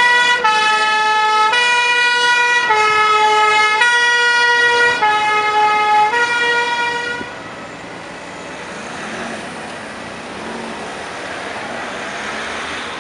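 Fire truck's two-tone siren, stepping between a low and a high note about once a second, cuts off about seven seconds in. After that only the quieter noise of passing vehicles remains.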